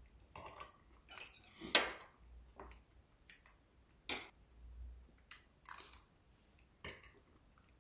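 Eating curry rice: a metal spoon and chopsticks clicking and scraping against a ceramic bowl, mixed with chewing and slurping mouth sounds, as half a dozen short separate sounds. The loudest come a little after a second in.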